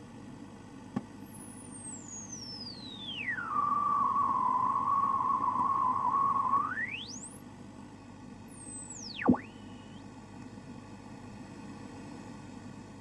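Radio tuning noise: a single whistle glides down from very high, holds steady and louder near the middle, then sweeps up and plunges down again, over a constant static hiss. A faint click comes about a second in, and another near the end of the last downward sweep.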